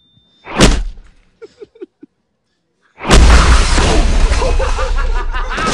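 Trailer sound design: a sudden loud swelling hit about half a second in, a few faint short tones, then a gap of silence. About three seconds in a loud, steady rushing noise with a deep rumble comes in, with voices over it.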